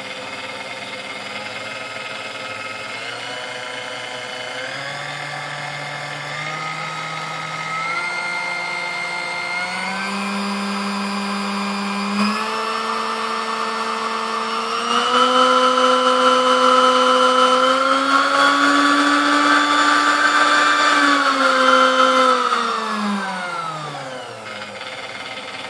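Sunbeam Mixmaster Model 11 stand mixer motor running with a steady whine, its pitch stepping up speed by speed as the dial is turned, loudest at the top speeds, then winding down near the end. Speed control works at every setting and it runs smoothly, after a shorted capacitor and a bad resistor were replaced.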